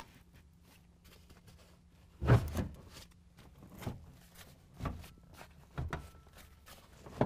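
Dull knocks and clunks as a pickup's rear seat back is pushed by hand into its mounting clips. The loudest knock comes about two seconds in, followed by about four lighter ones.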